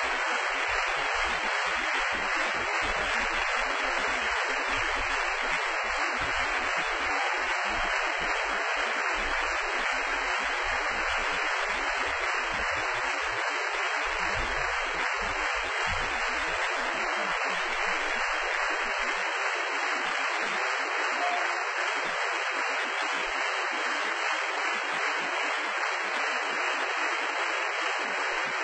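Audience applauding steadily: a dense, even clatter of many hands clapping, with no music playing.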